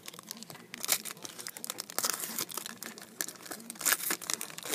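A sports card pack's shiny wrapper being torn open and crinkled by hand: a dense, irregular run of sharp crackles, loudest about a second in and again near four seconds.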